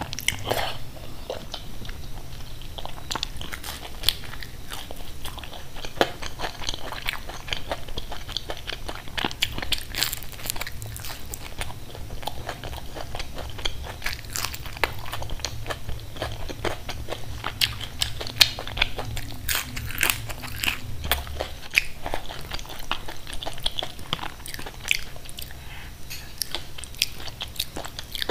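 A person eating close to the microphone: biting and chewing khichdi and fried fritters, with a steady run of short crunchy clicks and mouth sounds.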